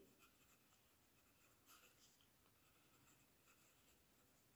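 Faint scratching of a marker pen writing on paper in short, irregular strokes.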